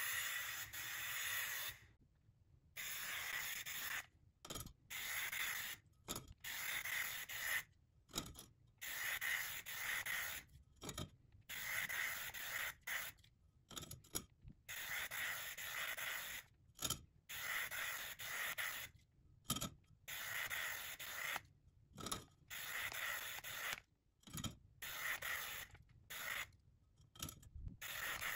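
Aerosol spray-paint can hissing in short bursts of a second or two, over and over, with brief silent gaps as the nozzle is pressed and released.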